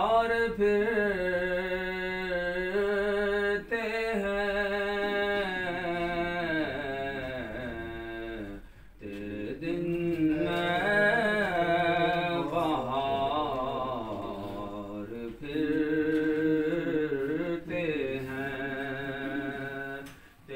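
An unaccompanied voice singing a devotional Urdu song in long, melodic held notes, with short breaks between phrases.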